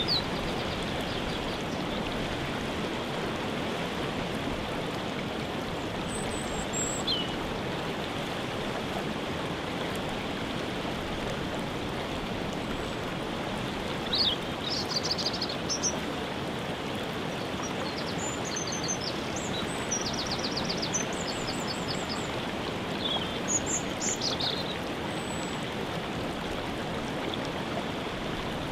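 Waterfall rushing steadily, with songbirds chirping and trilling above it now and then.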